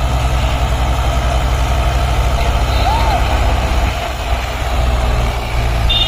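Swaraj 843 XM tractor's three-cylinder diesel engine running hard as the tractor labours through deep sand, with a fast low throb. A second tractor's engine runs close behind it. A vehicle horn starts sounding near the end.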